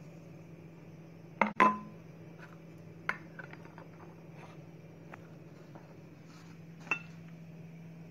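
Kitchenware clinking against a metal pot of milk: two sharp knocks about a second and a half in, the second one ringing briefly, then a few lighter clinks, over a steady low hum.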